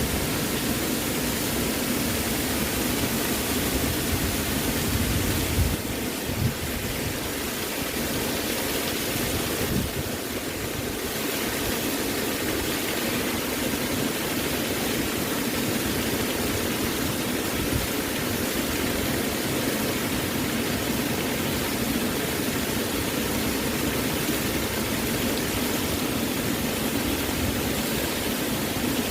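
Waterfall: a steady, dense rush of falling water, with a slight dip in level twice.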